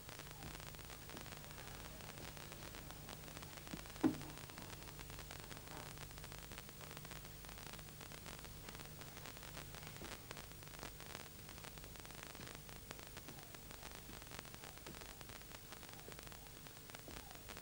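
Steady hiss and hum of an old television recording's soundtrack, with faint crackles and a single short knock about four seconds in.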